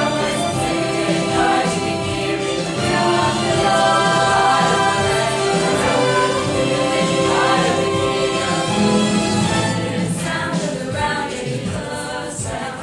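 A choir singing, several voice parts at once in harmony.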